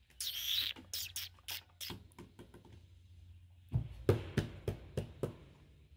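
A string of light knocks, taps and thuds as a baby monkey scrambles around a hanging saucer swing and a tarp-covered floor, with a short high scrape near the start.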